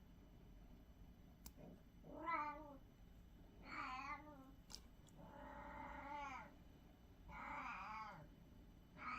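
Domestic cat meowing over and over: about five drawn-out meows, one every second and a half or so, beginning about two seconds in. There are a couple of faint clicks in between.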